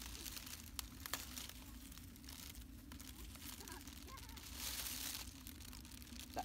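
Leaves rustling and crinkling as a hand picks young shoots off a leafy shrub, with a couple of sharp snaps about a second in and a louder rustle a little past the middle.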